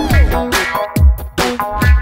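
Electronic background music with a steady beat: deep kick drums falling in pitch about once a second under synth notes.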